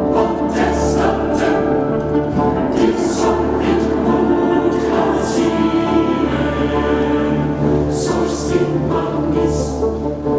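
Orchestral music with a choir singing, at a steady level.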